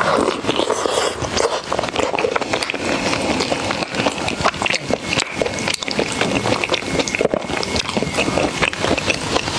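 Close-miked chewing of crunchy food: a dense, steady run of crackly crunches.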